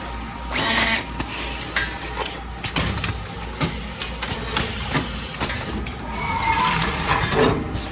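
Automatic sachet counting and cartoning machine running: a steady hum with irregular mechanical clicks and knocks and short hissing swells about a second in and near the end.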